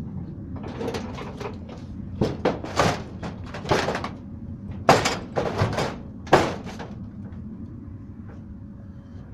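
Footsteps and knocks on a metal roof and steel canopy frame: about a dozen sharp, irregular clacks over some six seconds, the loudest about five and six seconds in, then they stop.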